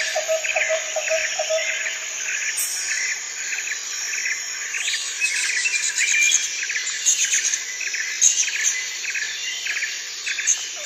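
Jungle ambience of insects and birds: a dense high insect hiss with regular chirps about twice a second, and a lower pulsing trill that stops about two seconds in.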